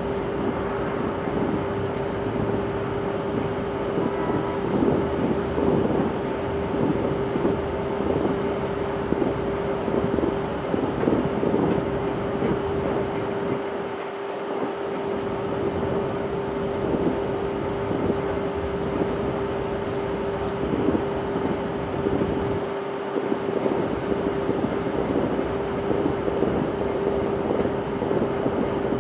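Distant fireworks: a continuous run of muffled bangs and crackle from a shell barrage several kilometres off, over a steady hum.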